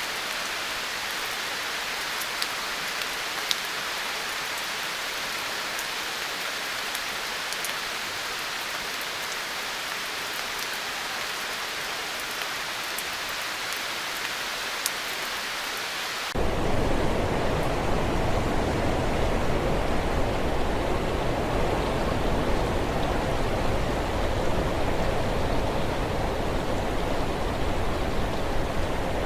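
Rain sound effect: a steady hiss of rain with a few sharp drop ticks, cut abruptly about sixteen seconds in to a louder, deeper rush of water that holds steady.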